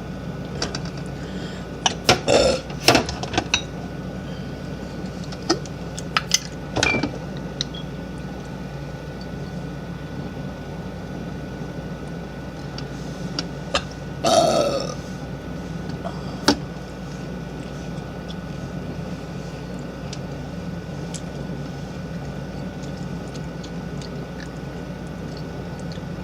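A young woman burping. There is a cluster of short, loud burps about two to three seconds in, a few more around six to seven seconds, and one longer burp about fourteen seconds in. A steady low hum runs underneath.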